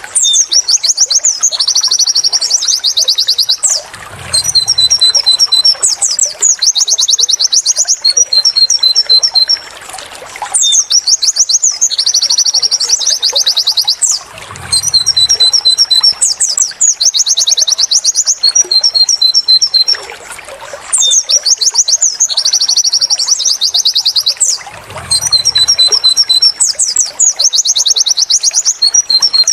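White-eye (pleci) song: bright, high 'wit wit' notes and rapid 'tulit tulit' trills. It comes in the same sequence about every ten seconds, with a short pause between repeats, as a looped training recording.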